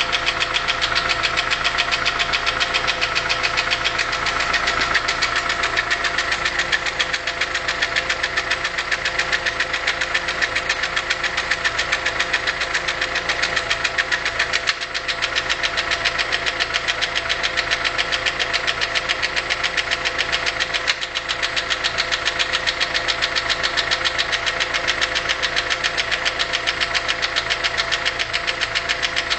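VW Polo 6N 1.4 L petrol engine running steadily with a loud, rapid, even ticking knock from the valve train. The noise comes from a defective hydraulic valve lifter with a hole in it, a fault that also left the engine down on power and running roughly.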